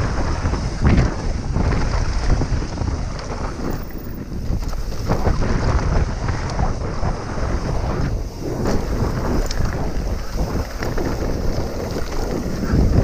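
Wind buffeting the microphone of a mountain bike riding fast downhill, over a steady rumble of knobby tyres rolling on dirt and loose gravel. The bike rattles and clunks irregularly as it hits bumps.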